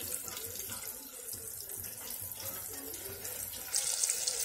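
Shrimp deep frying in hot oil in a deep fryer: a steady sizzling hiss, which grows louder near the end.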